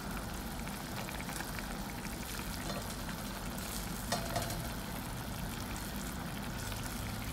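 Tamarind fish curry boiling hard in a clay pot, a steady bubbling and spattering.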